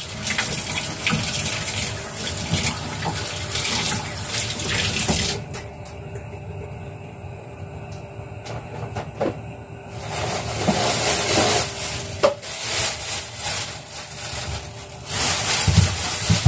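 Kitchen tap running into a stainless-steel sink as lotus roots are rinsed under it. The water stops about five seconds in and starts again a few seconds later, and a plastic bag is handled near the end.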